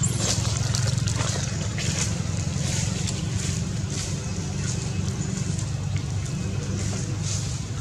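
A steady low drone, like an engine running at a distance, with many faint short clicks scattered above it.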